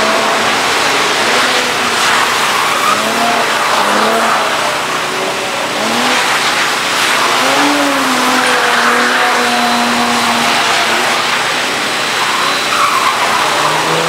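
Cars doing donuts: engines revving and tires squealing and skidding in a continuous loud din.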